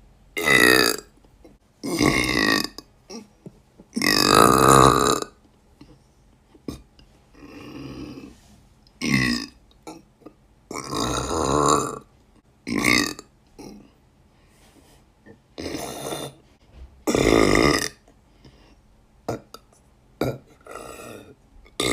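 Girls burping loudly, one burp after another, about ten in all, each from half a second to about a second long with short quiet gaps between.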